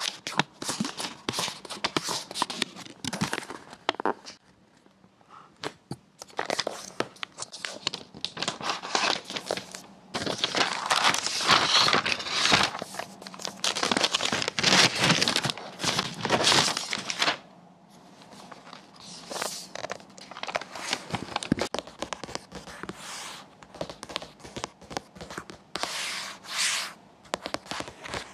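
Paper packaging being handled close up: a sticker seal peeled from a tissue sheet, then the protective paper wrap pulled and peeled off a laptop lid, making crackly rustling and tearing sounds. The sound comes in spells with a quiet gap early on; the busiest, loudest crinkling is in the middle.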